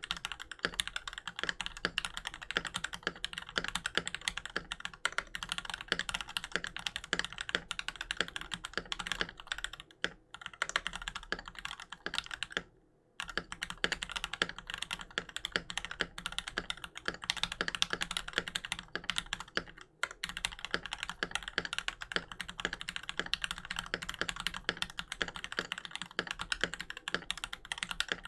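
Fast, continuous typing on a Keychron V1 mechanical keyboard with lubed JWICK Black linear switches, a steel plate and PBT keycaps: a dense run of key clicks that stops briefly about halfway through.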